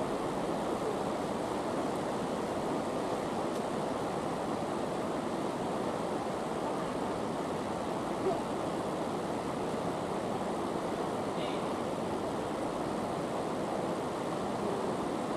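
Steady rushing room tone of a large indoor tennis hall, like air from ventilation. There is a single soft knock about eight seconds in.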